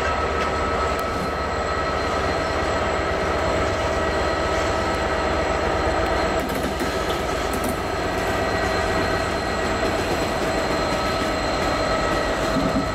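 DB Cargo Class 66 diesel locomotive, its EMD two-stroke V12 engine running steadily as it rolls slowly past close by, with a low throb under steady high whining tones.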